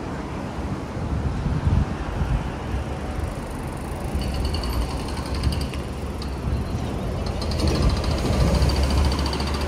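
Road traffic on a busy city street: a steady rumble of passing vehicles. A faint high-pitched whine comes in about halfway through.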